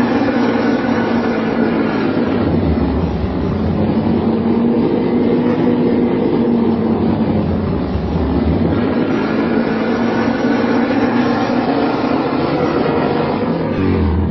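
Darkseeker creature sound effect: a loud, continuous rasping scream with a few held pitches through it, changing in texture about two and a half seconds in and again near nine seconds.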